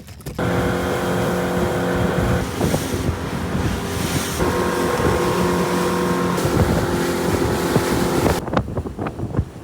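Motorboat engine running steadily under way, with wind on the microphone; it cuts off abruptly shortly before the end.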